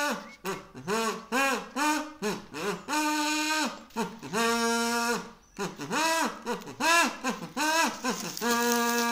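A wordless tune in a single voice-like line: short notes that swoop up and down in pitch, with a few longer held notes, the last one near the end.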